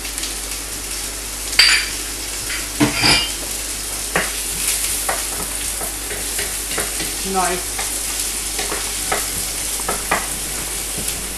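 Chopped onion sizzling in olive oil in a frying pan, stirred with a wooden spatula that scrapes and knocks against the pan, with the sharpest knocks a couple of seconds in. The onion is being softened in the hot oil.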